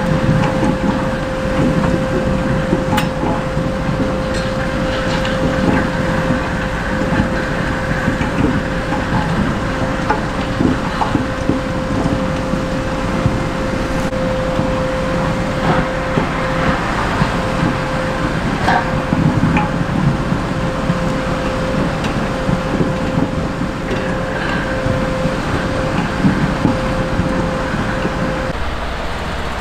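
Ropa Maus 5 sugar-beet cleaner-loader working a beet clamp. The machine runs steadily while beets rattle and knock through its pickup, cleaning rollers and conveyors. A steady high whine runs along with it and stops near the end.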